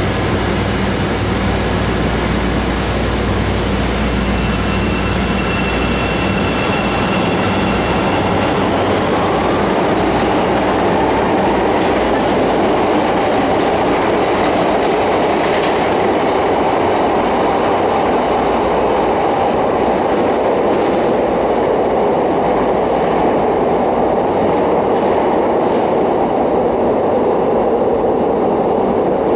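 Bombardier 5000-Series subway train in a station tunnel, first standing with a steady hum, then pulling out. A loud, dense rumble of wheels and motors builds and fills the tunnel, with a few sharp clacks from the wheels. Its higher sound falls away late on as the train recedes down the tunnel.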